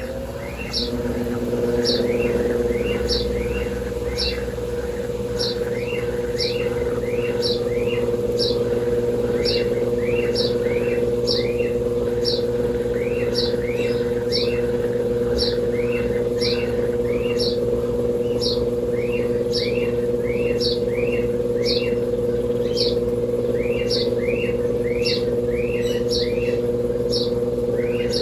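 Brastemp Double Wash top-loading washer on its intermediate spin, the motor whine rising in pitch at the start and then holding steady. Over it a small bird chirps in quick, regular repeated calls, with a few short pauses.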